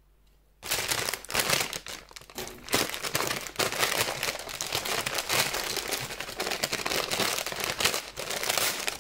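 Brown paper gift bag rustling and crackling as hands open it, starting about half a second in.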